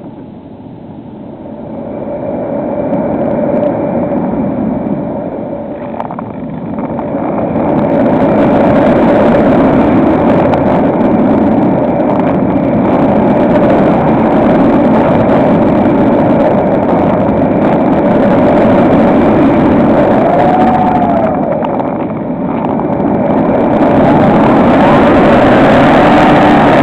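HobbyKing SkyEye's electric motor and propeller running in flight: a steady hum under a rushing noise, getting louder and softer several times as the throttle changes.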